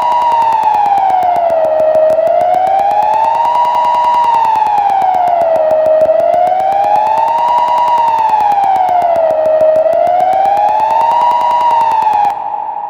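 Kockum Sonics Delta-4 TK siren sounding the general alarm signal: a loud wail rising and falling about once every four seconds. It cuts off near the end, leaving an echo that fades away.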